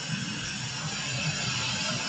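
Automatic car wash equipment heard from inside the car: a steady rushing noise with no breaks.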